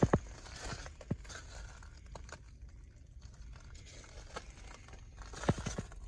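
Footsteps crunching on gravel: a few steps near the start, a lull, then a quick run of steps near the end.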